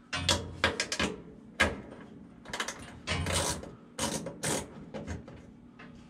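Screwdriver backing a screw out of a furnace's sheet-metal blower housing: irregular short bursts of metal clicking and scraping.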